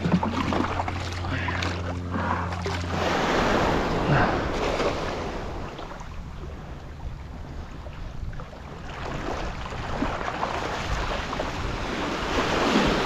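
Ocean surf washing on the beach, swelling and easing, with wind on the microphone. A low steady hum runs underneath and stops about three seconds in.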